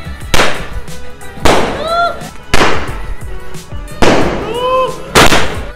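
Handheld roman-candle firework tube firing five loud shots, about one a second, two of them followed by a short rising-and-falling whistle.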